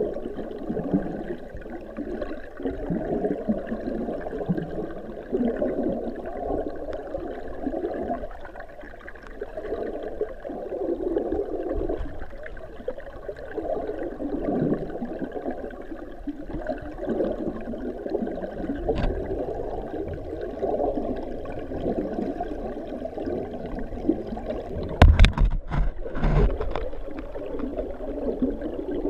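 Water churning through a fish-ladder pool, heard underwater: a rushing, gurgling noise that rises and falls. About 25 seconds in, a quick cluster of sharp knocks.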